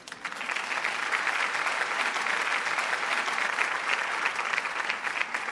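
Audience applauding, many hands clapping, starting suddenly at the end of a recited poem, holding steady and dying away near the end.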